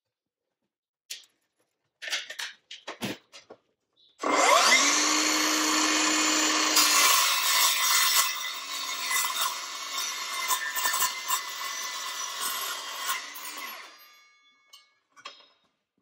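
Milwaukee M18 Fuel 2982-20 cordless metal-cutting circular saw with an 8-inch blade, starting about four seconds in with a rising whine and cutting through 1/8-inch-wall 1x2 steel square tubing for about ten seconds, then winding down. A few clicks and knocks come before it starts.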